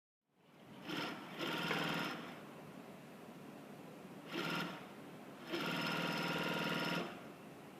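A double-side cashmere sewing machine running in spurts. There are three louder spells of stitching, about a second, half a second and a second and a half long, with a quieter steady running sound between them.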